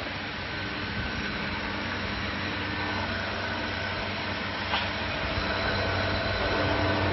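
Remax 1318 stone CNC router running with its 5.5 kW water-cooled spindle system powered: a steady machine hum with a faint high whine, growing a little louder towards the end, and one short tick about five seconds in.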